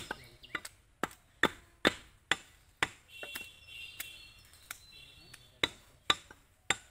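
Heavy butcher's chopping knife striking beef on a wooden log chopping block: a run of sharp chops about every half second, a pause of a couple of seconds midway, then a few more chops.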